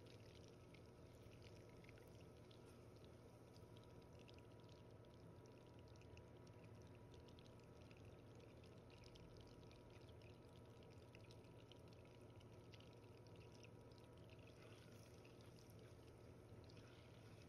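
Butter boiling in a stainless steel pot, with faint, continuous crackling and popping of bubbles as its water boils off on the way to brown butter.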